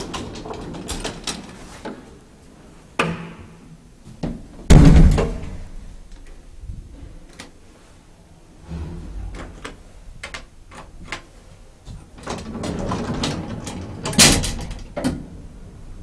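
Elevator doors being worked: a series of clicks and rattles, with a heavy slam about five seconds in and another loud knock near the end.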